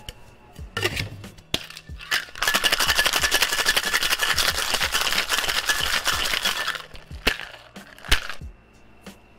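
Ice rattling hard inside a stainless steel cocktail shaker being shaken for about four seconds, after a few clinks as the tins are closed. Two sharp knocks follow near the end.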